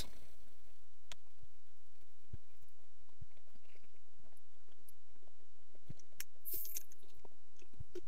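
A steady low hum with a few faint clicks and a brief crackle as paste flux is dabbed onto the through-hole solder pads of a circuit board.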